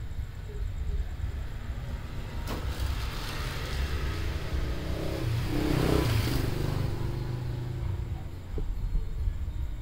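Steady low rumble of a motor vehicle, swelling as it passes to a peak about six seconds in, then fading.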